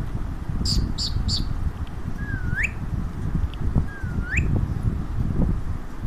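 Alexandrine parakeet giving three quick high chirps, then two whistles that dip and sweep sharply upward, about two seconds apart, over a steady low rumble.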